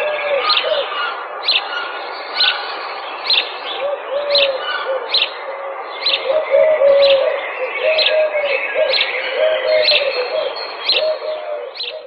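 Garden birds calling: one repeats a short, sharp high call about once a second, while a dove coos in low phrases of a few notes, over a steady background hiss.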